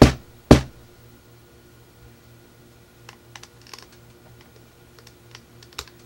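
Two sharp plastic knocks from a DirecTV remote control being handled, then faint scattered clicks as snug-fitting AA batteries are worked out of its battery compartment.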